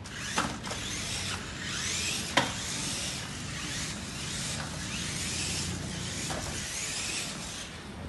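Toy remote-control off-road rock crawler's electric motor and gears whirring as it drives over a tiled floor, the whine rising and falling with its speed. Two sharp clicks, about half a second in and about two and a half seconds in.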